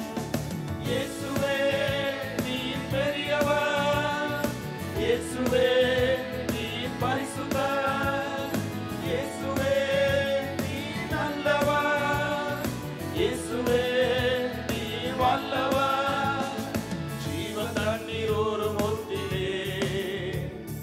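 Christian worship song: voices singing in phrases of about two seconds each, held notes over a steady instrumental accompaniment.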